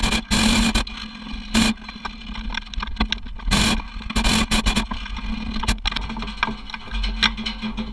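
Hot-air balloon burner fired in short, irregular blasts over a steady low hum.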